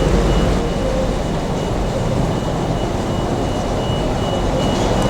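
Steady rumbling noise of a train running, with a faint thin high-pitched whine held over it.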